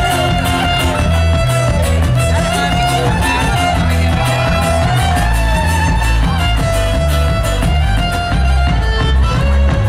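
Live folk-rock band playing: a fiddle carries the melody over guitar, bass guitar and a steady drum beat.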